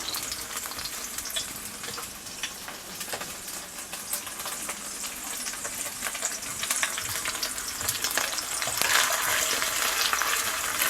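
Frozen chopped green onion frying in plenty of oil in a pan, sizzling with a steady run of small crackling pops: scallion oil being made over medium-low heat, the pops coming from the moisture in the frozen onion. The sizzle swells louder near the end.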